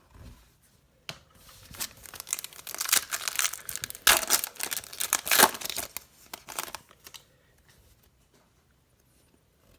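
Foil wrapper of a Bowman Chrome baseball card pack being torn open and crinkled: a run of crackling rustles lasting about six seconds, loudest around the middle.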